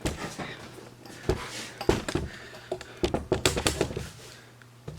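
Irregular knocks and clicks of handling and movement in a small room, with a quick cluster of them about three seconds in.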